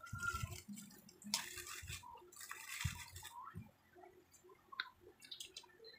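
Faint wet eating and drinking sounds: chewing and sips of juice from a cup, with two louder noisy stretches about one and a half and three seconds in.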